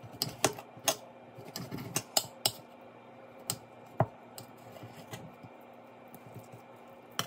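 Knife blade clicking and tapping against a plate while slicing raw beef: a run of sharp clicks in the first four seconds, then only faint ticks.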